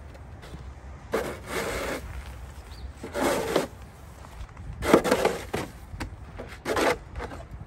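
Snow shovel scraping across patio pavers as it pushes snow, four strokes.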